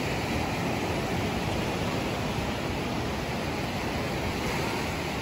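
Steady rush of ocean surf washing in and out at the shoreline, an even hiss with no distinct breaks.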